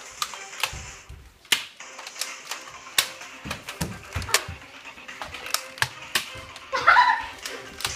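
Sharp, irregular clicks and knocks, a few to the second, with some low thuds in the middle and a short loud cry about seven seconds in.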